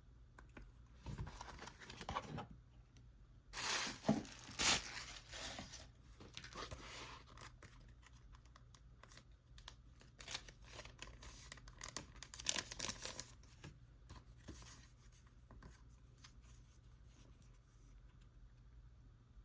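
Packaging being torn open and handled by hand: irregular bursts of tearing and rustling, loudest about four seconds in, with further bursts later and only small handling noises near the end.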